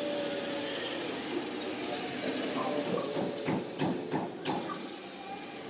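Radio-controlled MAN tipper truck's drivetrain whirring mechanically as it drives over dirt, with a run of clicks and rattles about halfway through.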